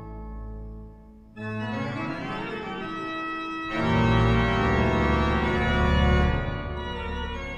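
Background music of slow, sustained organ chords. A new chord comes in about a second and a half in, and a fuller, louder one with deep bass about four seconds in.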